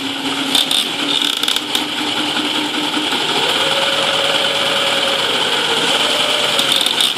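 A small electric motor spinning a 3D-printed plastic differential, drive shafts and CV joints, a steady mechanical whirr with a hum that steps up in pitch about three seconds in. A few sharp clicks of the plastic parts come in the first two seconds and again near the end.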